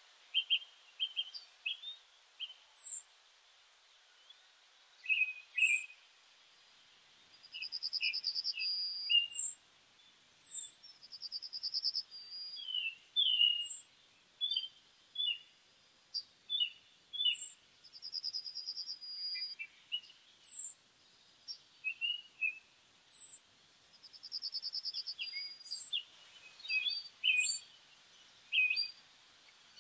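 Birdsong: several small birds chirping, with short high notes every two to three seconds and a rapid trill now and then, lasting about a second.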